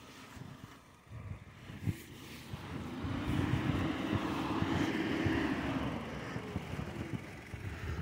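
Footsteps crunching through deep fresh snow, with a vehicle passing: its steady hum swells from about two seconds in, is loudest in the middle, and fades near the end.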